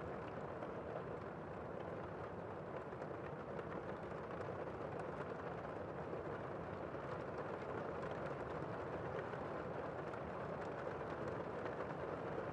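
Heavy rain heard from indoors, a steady muffled hiss with the higher tones dulled.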